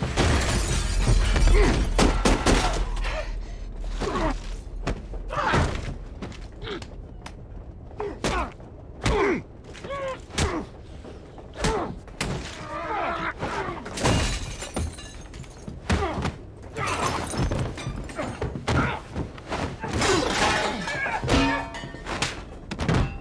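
A violent hand-to-hand fistfight: a heavy crash at the start, then a dense string of punches, thuds and bodies slamming into things, with glass shattering and men grunting between the blows.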